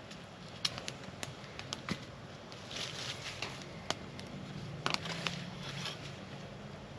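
Wood campfire crackling, with sharp irregular pops and snaps scattered throughout.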